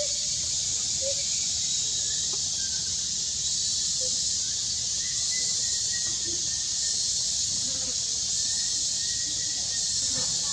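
Steady high-pitched hiss throughout, with a few faint, short squeaks scattered through it.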